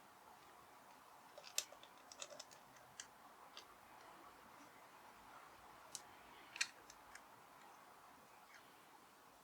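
Near silence with a scattering of light, sharp clicks and taps from hand tools and small parts being handled during clutch reassembly on a 50cc motorcycle, in two short clusters, one about one and a half seconds in and one about six seconds in.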